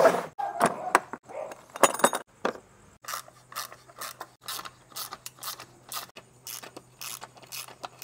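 Irregular sharp clicks and clacks of hard parts being handled and fitted, about one or two a second, after a loud rustling knock at the start. A faint steady low hum comes in about three seconds in.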